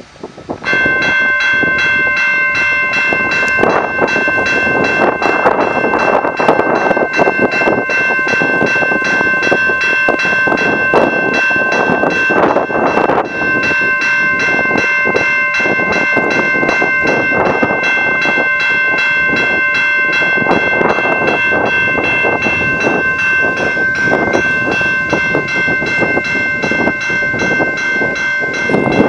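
Railroad crossing warning bell starting up about a second in and ringing rapidly and steadily: the crossing signals have activated for an approaching train.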